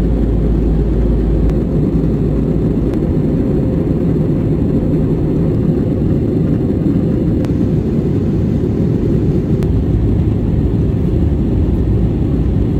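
Steady in-flight cabin noise of an Airbus A320-200: an even low rumble of engines and airflow that does not change.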